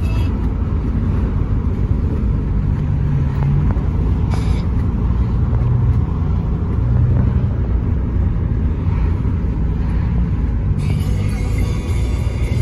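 Dodge pickup truck's cabin noise while driving: a steady low rumble from the engine and road, with the engine hum rising and falling a little.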